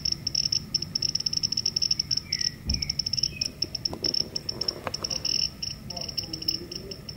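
Military Geiger-Müller counter's speaker giving a short high-pitched chirp for each detected count, irregular and fast at about 17 counts a second, its probe on a strontium-90 check source.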